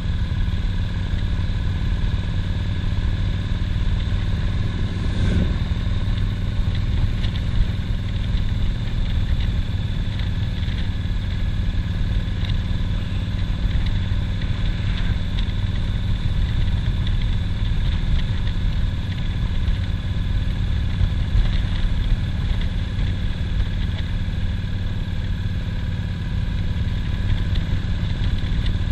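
Cruiser motorcycle's engine running steadily at road speed, heard from the rider's seat, mixed with wind noise on the microphone.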